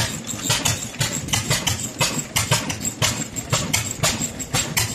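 Several antique stationary gas engines running together: a quick, uneven train of exhaust pops, about four a second, where the beats of the different engines overlap.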